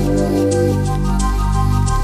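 Soft, slow background music: held synth chords over a steady low bass, with a light repeating high percussion tick.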